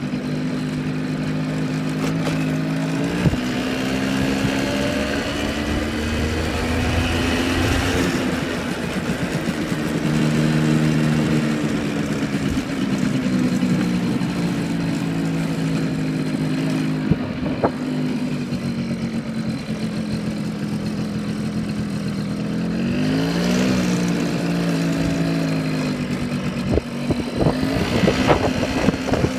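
Small Yamaha motor scooter engine running under way at low speed, its note rising and falling gently with the throttle, with a dip and climb about two-thirds of the way in. A few sharp knocks near the end.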